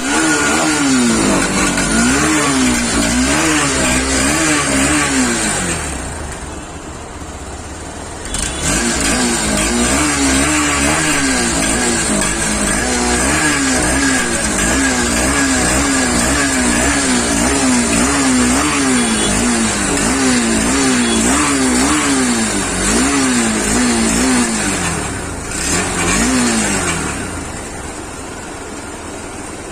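Honda CB200 motorcycle engine, just after a service, revved over and over with quick throttle blips, its pitch rising and falling in rapid succession. It drops back to idle about six seconds in, picks up the blipping again around eight and a half seconds, and settles to idle near the end.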